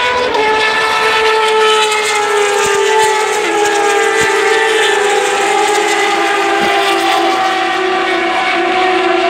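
A pack of Turismo Carretera six-cylinder race cars running flat out past the stands. Several engine notes overlap, their pitches sliding slowly lower as the cars go by, with one dropping a step about three and a half seconds in.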